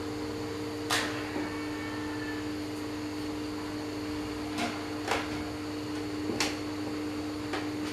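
A steady electrical hum holds on one pair of low tones, with a handful of short sharp clicks and taps, the loudest about a second in.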